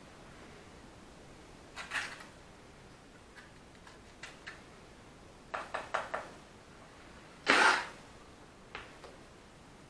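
Bricklaying with a trowel: scraping mortar and tapping bricks into place, heard as scattered knocks and scrapes. There is a quick run of taps around six seconds in, and the loudest sound, a longer scrape, comes about seven and a half seconds in.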